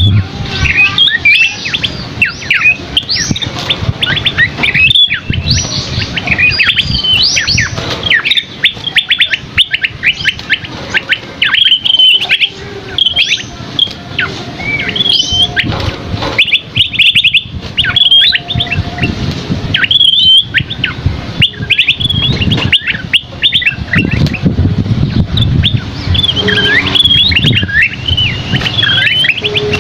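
Asi topi sisik, a small songbird, singing a long, busy song of quick chirps, trills and whistled notes sliding up and down, with hardly a break.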